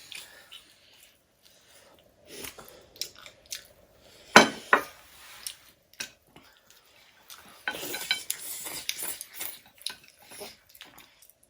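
Cutlery clinking and scraping against plates during a meal, in scattered clicks: one sharp clink about four seconds in, then a busy run of clatter around eight to nine seconds in.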